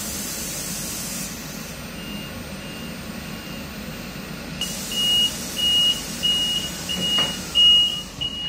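Passenger train's door warning beeping: a row of short high beeps, about two a second, that get louder about halfway through, over a hiss of compressed air. A shorter air hiss comes about a second in.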